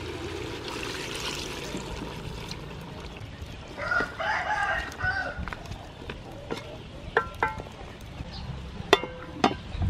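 A rooster crows once in the background about four seconds in, over the steady low sizzle of chicken curry cooking in an aluminium pot. A few short knocks come near the end.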